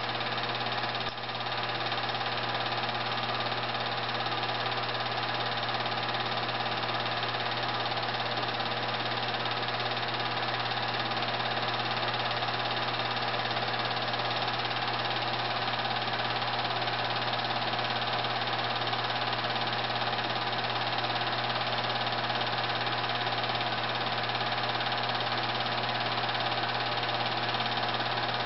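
Film projector running: a steady mechanical whir and hum that does not change.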